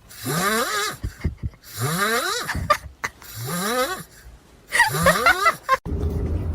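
An animal calling four times in a row, each call drawn out and rising in pitch. Near the end it cuts to a steady low hum.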